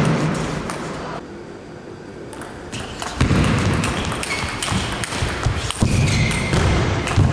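Table tennis rally: the ball clicking sharply off the paddles and bouncing on the table, a few ticks at first, then quick ticks coming thick and fast from about the middle on.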